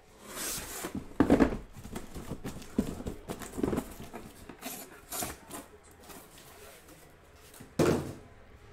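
A cardboard case being handled and shrink-wrapped trading-card boxes set down and stacked on a table: irregular rustling and knocks, with sharp thumps about a second in and near the end.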